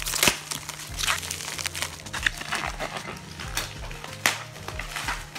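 Plastic packaging crinkling and crackling as it is handled and pulled open by hand, a quick run of sharp crackles.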